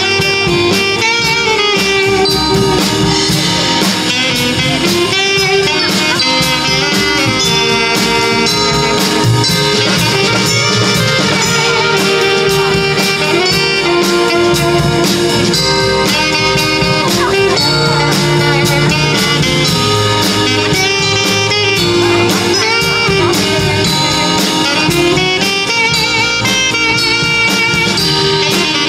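Live jazz band playing: a saxophone carries the melody over keyboard, bass and a drum kit keeping a steady beat on the cymbals.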